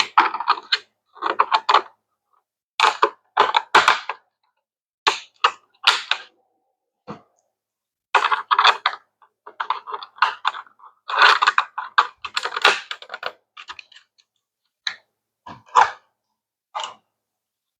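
Hydroponic tower parts being handled and fitted together: bursts of quick clicks and rattles, a dozen or so separate bouts with silent gaps between them.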